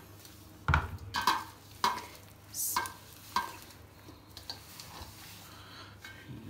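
A hand mixing maize flour and water in a stainless steel bowl: a dull thump under a second in, then several sharp knocks with a short metallic ring as the hand strikes the bowl, over the first three and a half seconds, followed by quieter mixing.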